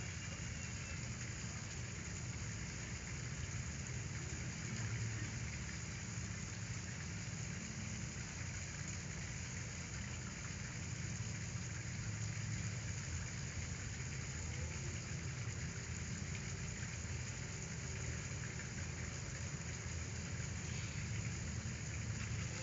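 Steady hiss with a low hum beneath it: constant background noise with no distinct events.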